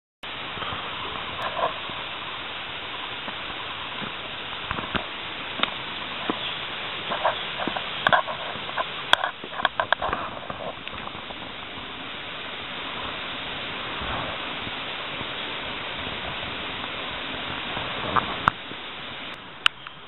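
Crackling and snapping of movement through dry leaf litter and undergrowth, in clusters about 5 to 11 seconds in and again near the end, over a steady hiss.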